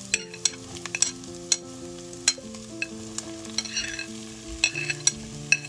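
Silicone spatula clacking sharply against a plate and a nonstick frying pan, a dozen or so times, as chopped bell peppers are scraped into the pan, over a light sizzle of frying onion.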